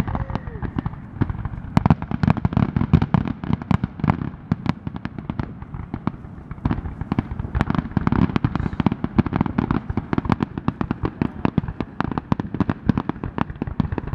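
Fireworks crackling: a dense, unbroken run of sharp pops and cracks, many a second, with no pause.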